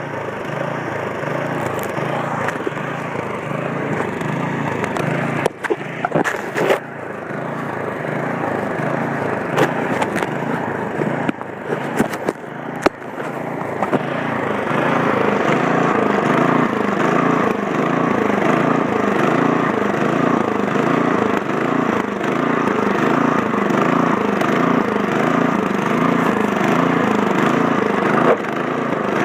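Gasoline snowblower engine running steadily with an even pulse, growing louder about halfway through, with a few sharp knocks in the first half.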